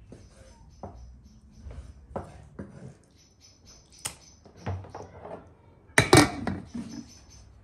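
Hands moving raw chicken pieces in an enamel basin: a string of short clicks and knocks against the basin, with a louder clatter about six seconds in.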